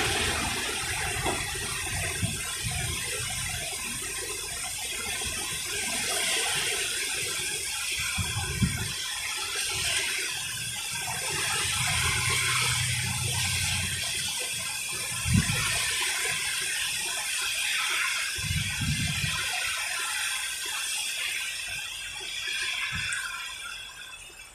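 Steady hiss of rain in a severe thunderstorm, with wind gusts rumbling on the microphone a few times. The rain sound fades near the end.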